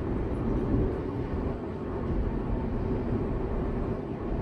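Toei 6300 series electric train running along the line, a steady rumble of wheels on rails and running gear heard from inside the passenger car.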